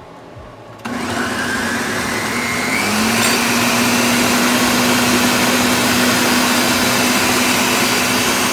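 Ninja countertop blender puréeing cooked tomatillos, chiles, cilantro, onion and garlic with a little water into a green sauce. It starts about a second in, its motor whine climbs to full speed over the next two seconds, then runs loud and steady.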